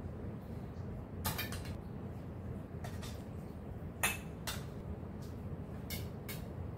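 Metal cooking utensils and pots clinking against a wok and pressure cooker on a stove, a handful of separate sharp clinks, the loudest about four seconds in, over a steady low hum.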